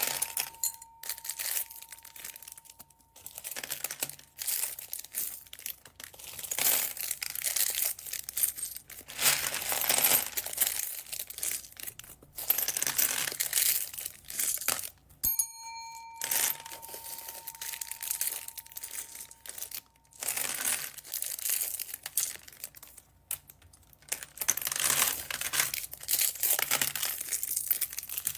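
Plastic packaging bags crinkling and rustling in irregular bursts as they are handled and opened. About halfway through, a bell-like ding rings out and fades over a few seconds.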